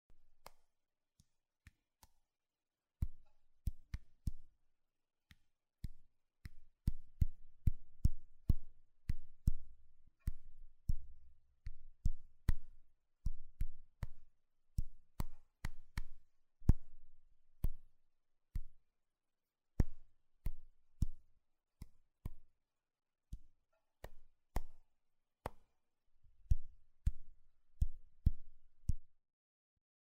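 Taps on an iPhone: a long, irregular run of short clicks, each with a dull low thud, sometimes in quick pairs. They are faint for the first few seconds, then louder.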